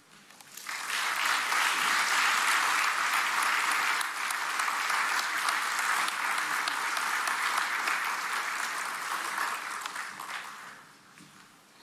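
Audience applauding. The clapping builds up within the first second, holds steady, and fades away near the end.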